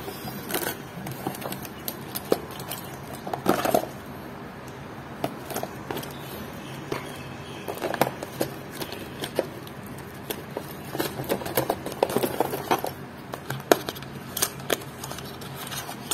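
Hands handling small watch-repair tools on a cloth: scattered clicks, knocks and short bouts of rustling as a plastic watch vice is set down and a cardboard tool box is handled.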